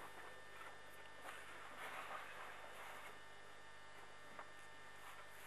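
Faint steady hum with a light hiss: quiet background, with no engine running.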